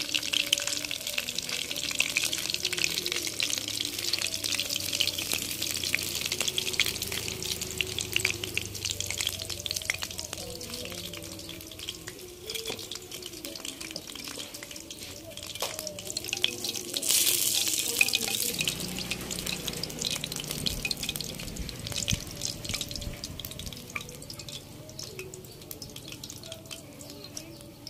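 Fish frying in hot oil in a wok: a steady sizzle with dense crackling, strongest in the first ten seconds and thinning out later, with a brief louder hiss about seventeen seconds in.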